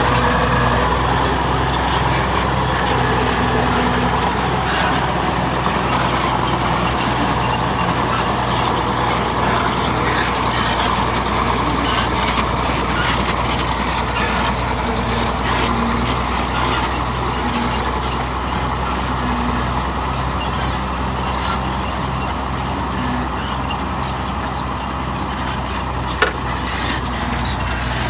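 Heavy bulldozer diesel engine running steadily, with one sharp knock near the end.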